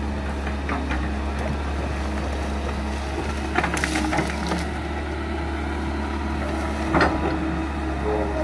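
Excavator's diesel engine running steadily while the bucket works a bamboo root clump, with crackling and snapping of bamboo about halfway through and once more near the end.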